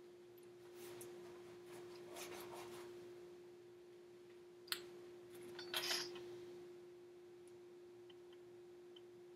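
Faint kitchen handling sounds over a steady low hum: soft scraping for a couple of seconds, a sharp click a little before the middle, and a short clatter of clicks about two-thirds of the way through.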